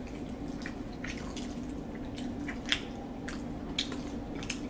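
People eating close to the microphone: wet chewing and lip smacks, heard as a string of short, sharp clicks at an irregular pace over a steady low hum.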